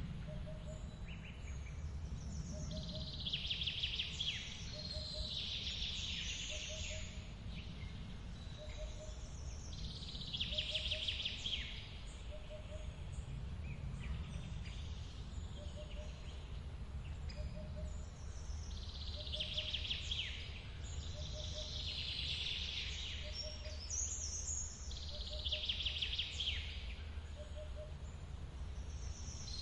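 Steady low rush of a forest waterfall, with birds singing short bursts of song every few seconds. A short low call note repeats about once a second.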